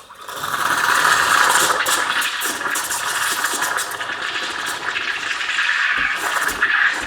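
Steam wand of a De'Longhi Magnifica bean-to-cup machine opening with a sudden loud steady hiss as it steams milk, with low gurgling thumps about twice a second near the end.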